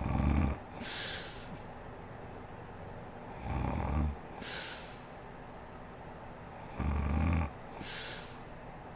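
A sleeping woman snoring: three low snores about three and a half seconds apart, each followed by a short, fainter breathy hiss.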